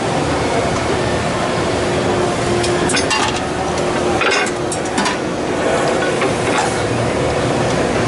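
Steady machine-hall din with a constant hum running under it and a few sharp metallic clicks about three to five seconds in.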